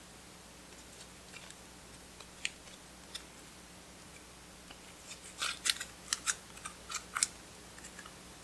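Clear slime being worked by hand, giving sticky clicks and small air-bubble pops: a few scattered at first, then a quick run of louder crackling pops about five to seven seconds in.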